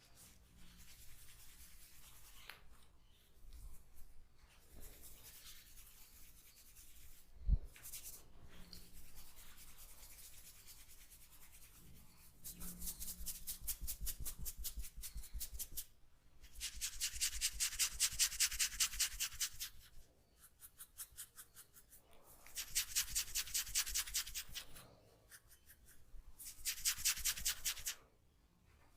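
A comb scraped quickly back and forth through hair and over the scalp in a head massage, making quick rhythmic raspy strokes, several a second, in four spells of a few seconds each after quieter rubbing at first. A single sharp click about seven and a half seconds in.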